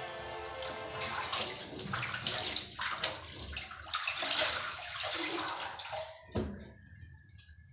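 Dishwashing at a stainless steel sink: water splashing and a metal basin being scrubbed and clattering. A sharp knock a little after six seconds in, after which it goes quieter.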